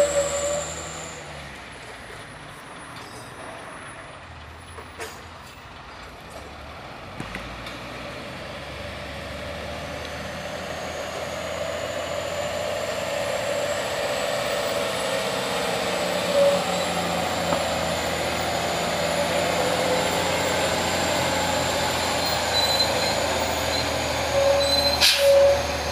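Heavy truck running and drawing nearer, its engine and tyre noise building steadily louder, with short squealing tones late on and a sharp knock near the end.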